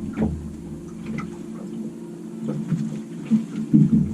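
Light water splashing and lapping beside a small boat, with scattered faint ticks over a steady low hum.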